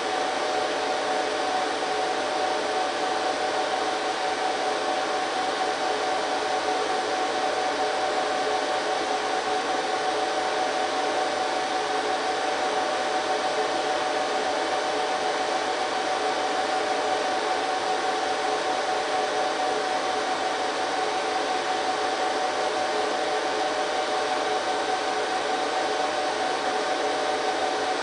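HP ProLiant DL380 G3 server's cooling fans running steadily: an even whirring rush with a steady whine on top.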